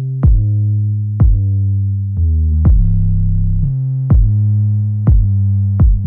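Electronic background music: a drum-machine beat with a kick roughly once a second under sustained synthesizer bass notes.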